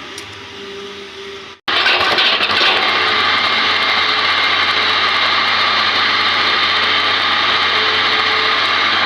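Hitachi ZX200 excavator's diesel engine running steadily. About a second and a half in, the sound drops out for an instant and comes back much louder, then stays steady.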